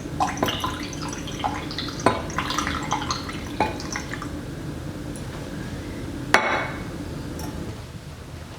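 Spoon stirring liquid in a dish, clinking against its sides now and then, with one sharper knock about six seconds in.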